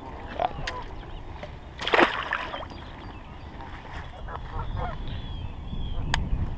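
Geese honking a few times in the background over rustling and handling noise, with a louder call about two seconds in and a sharp click near the end.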